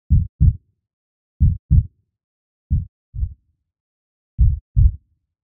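Slow heartbeat sound effect: four low double thumps, lub-dub, coming about every second and a half.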